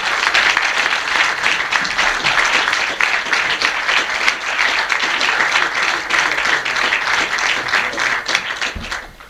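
Audience applauding: a dense, steady run of many people clapping in a small hall, dying away about nine seconds in.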